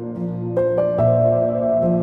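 Background music: a calm ambient piano piece with sustained chords and notes changing every half second or so.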